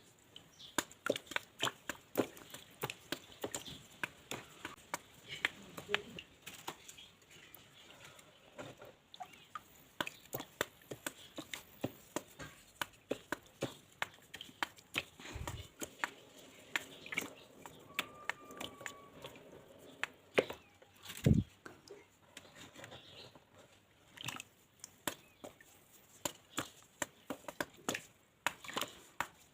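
Dry mud being crushed and crumbled: a dense run of crisp crunching snaps, several a second, with two heavier thuds about fifteen and twenty-one seconds in.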